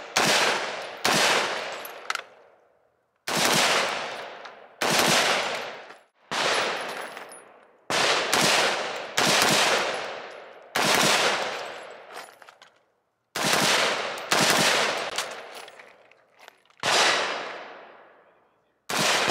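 Taiwanese T65 rifle firing single shots in a steady string, about a dozen, one every second or two. Each is a sharp crack followed by a fading echo.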